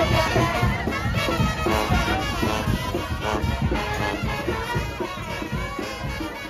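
Street brass band playing an upbeat marching jazz tune, with horns over a sousaphone bass line, gradually getting quieter.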